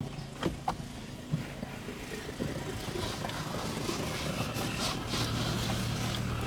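A steady low motor hum with a few light clicks in the first second and a half; the hum grows louder about five seconds in.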